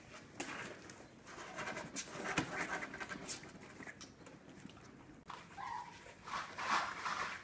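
Four-week-old puppies playing and scrambling about on foam floor mats, with scattered scuffs and light knocks, small panting sounds, and a short whine a little past halfway.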